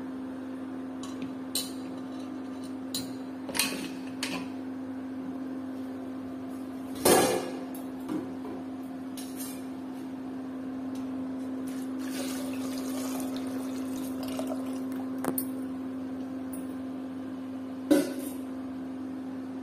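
Aluminium pressure cooker being handled, with chickpeas and potatoes inside: scattered knocks and clanks of metal, the loudest about 7 s in and another near the end. Water splashes in over the contents, over a steady low hum.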